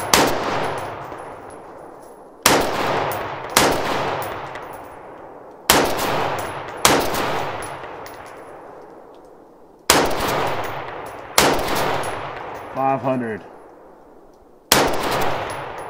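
AR-style rifle firing eight shots, mostly as pairs a second or so apart with a few seconds between pairs. Each shot is followed by a long echoing decay.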